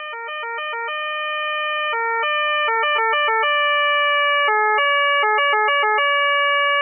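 Austrian police two-tone siren, switching between two pitches about a fourth apart in an irregular pattern of quick flips and longer held notes. It grows louder over the first few seconds.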